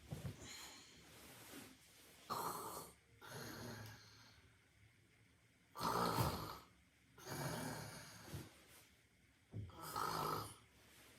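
A person snoring in sleep, one breath cycle about every three and a half seconds. Each cycle is a loud snore followed by a softer one, and the loudest snore comes about halfway through.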